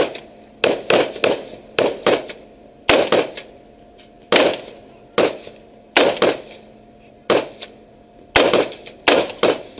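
Rifle gunfire: single shots fired quickly and unevenly, about two a second, each a sharp crack with a short tail, over a faint steady hum.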